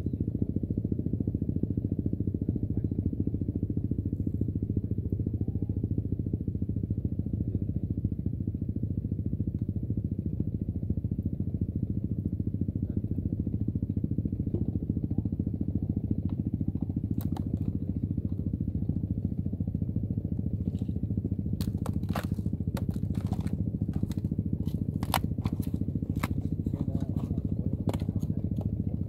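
A steady low engine drone. Sharp clicks and knocks come twice around the middle and in a quick run near the end.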